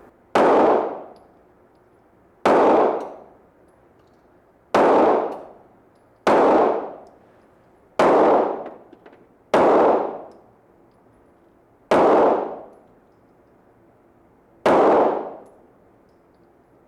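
Eight single handgun shots fired one at a time, each a sharp loud crack with a ringing, echoing tail lasting about a second. The shots come roughly every two seconds, with a longer gap before the last two.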